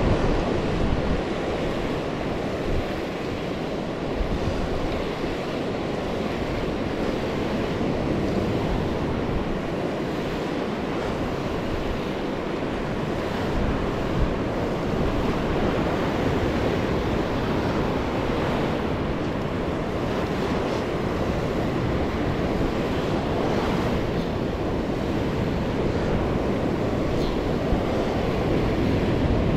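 Steady rush of ocean surf washing up on a sandy beach, with wind buffeting the microphone.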